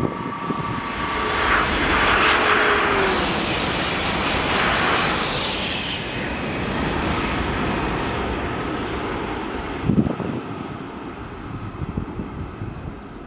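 High-speed electric train passing at speed: a rush of air and wheel noise that swells to its loudest about two to five seconds in, with a faint falling tone, then slowly fades as it goes away. A short thump about ten seconds in.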